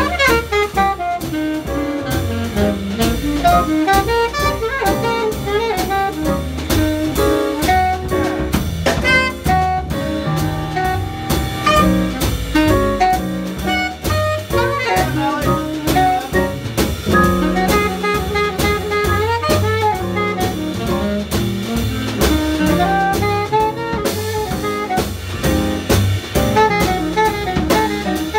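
Small jazz band playing an instrumental blues break: a saxophone solos over walking upright bass and a drum kit played with sticks.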